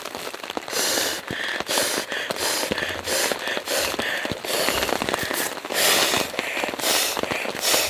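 Sea to Summit Ether inflatable sleeping pad being handled and blown up: a rapid run of short crinkling, rustling noises from its fabric.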